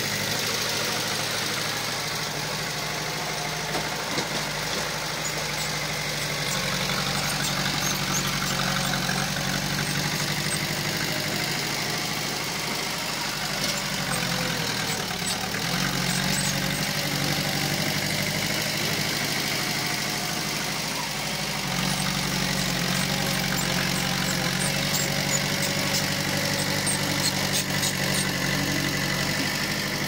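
Diesel engine of heavy earth-moving machinery running steadily. About halfway through, its note briefly sags and then picks up again.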